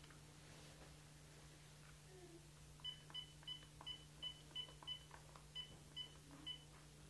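Cordless phone keypad beeping faintly as a number is dialed: about ten short beeps at roughly three a second, with a brief pause midway.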